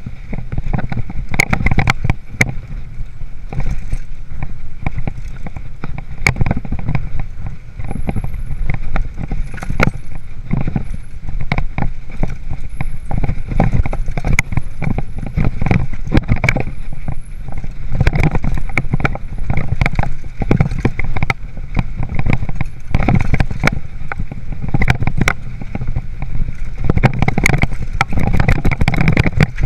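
Hardtail mountain bike (a 2013 Haro Flightline Sport 26er) rattling over a rough, rocky trail, picked up by a chest-mounted GoPro: a continuous run of irregular knocks and clatters over the low rumble of the tyres and wind.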